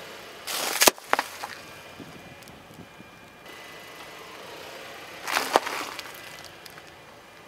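A car tyre rolling over wrapped snacks on asphalt, crushing a plastic-wrapped box of donuts and then a foil-wrapped chocolate bar. Two short bursts of crackling and crunching wrapper, each with a sharp pop, come about half a second in and about five seconds in.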